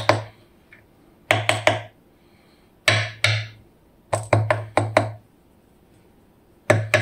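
Sharp taps and clicks of small metal lock parts being handled and knocked against a hard work surface while a pin-tumbler lock cylinder is taken apart. They come in short clusters of two to four taps, about every second and a half.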